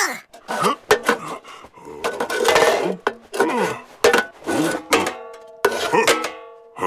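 Squeaky gibberish creature voices with swooping pitch, mixed with clinks and clatter of metal pots. About five seconds in, one pot rings on for a second or so.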